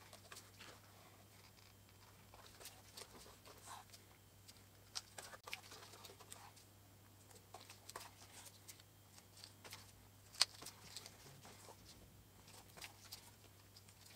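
Faint rustles and scratchy pulls of waxed thread being drawn through the stitching holes of a leather sheath during two-needle hand stitching, with light ticks of the needles and one sharper tick about ten seconds in. A low steady hum runs underneath.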